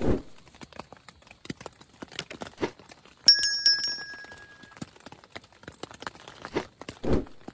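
A bright electronic chime with a click, about three seconds in, from an animated subscribe-button overlay. Around it are scattered light clicks and taps of a steel spoon against a plate as rice is eaten, with a dull thump near the start and another near the end.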